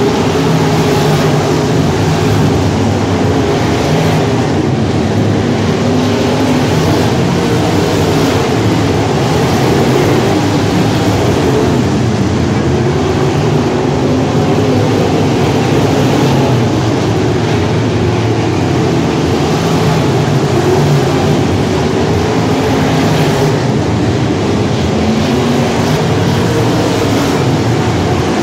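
A field of IMCA modified dirt-track race cars lapping the track, their V8 engines running at racing speed and blending into one loud, continuous sound.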